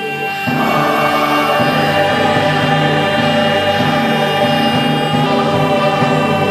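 Music with a choir singing in sustained chords, getting louder about half a second in.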